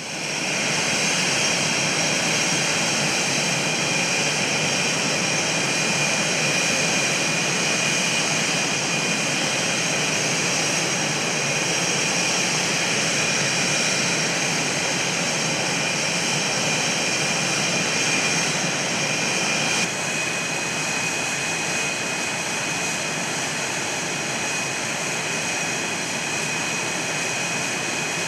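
Military jet fighter engine running steadily on the ground: a high whine over a rushing noise. About twenty seconds in the level drops slightly and the whine shifts a little.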